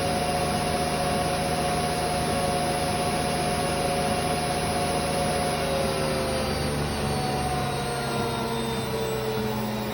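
Hotpoint Aquarius WF541 washing machine on a fast spin, its sealed tub repaired: a loud, steady rush with a motor whine whose pitch starts to fall about halfway through as the spin begins to slow.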